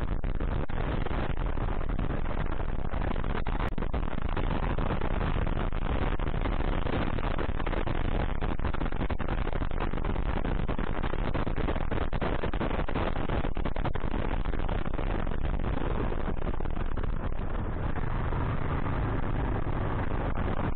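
Kawasaki KLR 685 dual-sport motorcycle's single-cylinder engine running under way, buried in steady wind and road noise.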